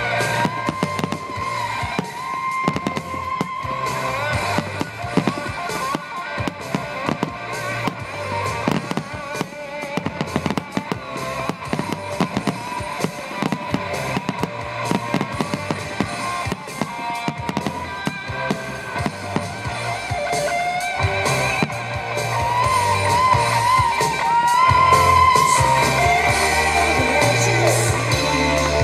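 Music with guitar and drums, with fireworks shells bursting and crackling throughout; the music gets louder about two-thirds of the way through.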